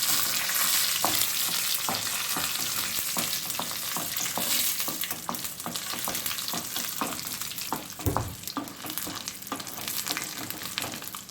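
Mustard seeds, curd chillies, chana dal and urad dal sizzling in hot oil for a tempering, with a steady hiss and many small pops and crackles. The dals are just starting to turn reddish, the stage before the curry leaves go in.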